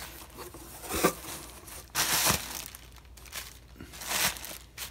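Plastic air-pillow packing crinkling and cardboard box flaps rustling as a shipping box is unpacked by hand, in several short bursts, the loudest about two seconds in.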